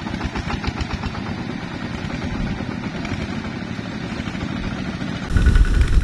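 Single-cylinder diesel engine of a two-wheel walking tractor chugging in rapid, even beats as it pulls a trailer heavily loaded with rice sacks. About five seconds in, the sound switches abruptly to a louder, deeper run of engine beats.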